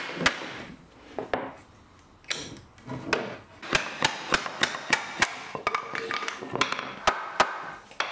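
Mallet blows knocking the solid oak face trim off an oak-veneered MDF shelf. The sharp wooden knocks come singly at first, then in a quick run of several around the middle, and a few more near the end.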